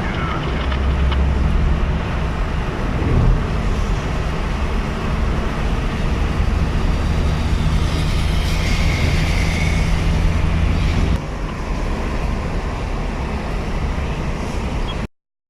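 Steady motor vehicle engine and road noise with a low hum, easing a little about two-thirds of the way through, then cutting off abruptly near the end.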